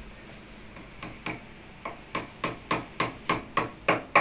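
Hammer driving a nail into a wall: sharp, even blows about three a second, starting about a second in and growing louder.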